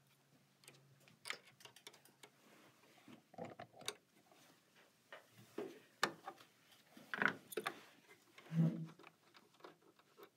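Light, scattered metal clicks and scrapes as a small screwdriver loosens the presser-foot ankle screw on a Janome Skyline S7 sewing machine and the metal parts are handled.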